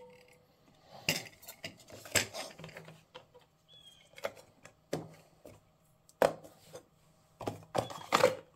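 Parts of a cut-open Fram oil filter being handled and fitted back into its steel can: irregular light metallic clinks and knocks, a few more close together near the end.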